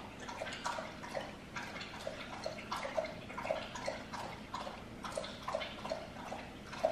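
Slow, irregular water drips, about two or three plinks a second.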